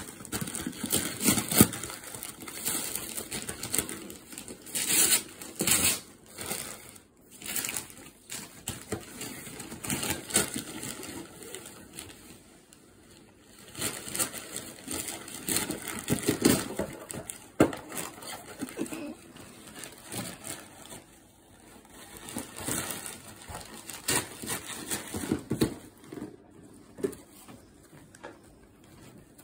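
Gift wrapping paper crinkling and rustling in irregular bursts as a baby grabs and pulls at it.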